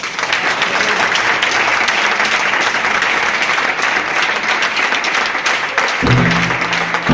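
Audience clapping and applauding steadily. About six seconds in, low music with a drum-like beat starts under the clapping.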